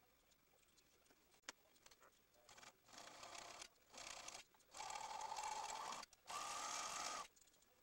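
Serger (overlock machine) stitching in short runs, started and stopped about four times, the longest just over a second, with a steady motor whine through each run. A single click comes about a second and a half in.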